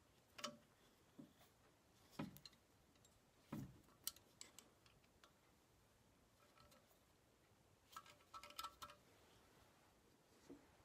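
Faint, scattered metallic clicks and knocks from the control levers and linkage of a Massey Ferguson 35 hydraulic lift cover being handled and set by hand. A few of them ring briefly, with a quick run of clinks near the end.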